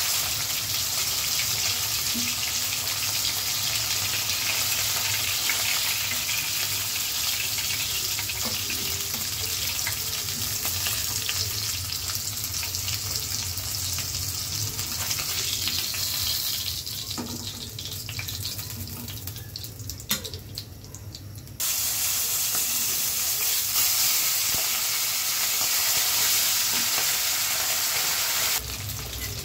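Rupchanda (silver pomfret) fish frying in hot oil in a pan: a steady sizzle. It thins out for a few seconds past the middle, then comes back abruptly.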